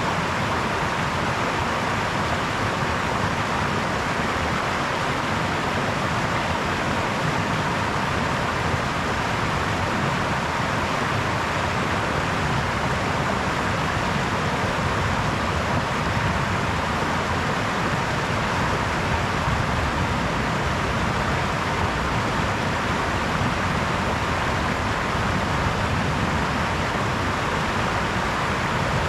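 A brook's water running over stones in a steady, unbroken rush, with no rises or pauses.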